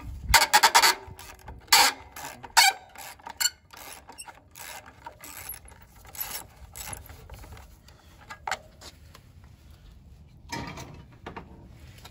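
Socket ratchet on a long extension clicking as it works a rusty carburetor mounting bolt loose on a small Subaru engine. The clicks are loudest in the first few seconds, then lighter and quicker, with one more burst near the end.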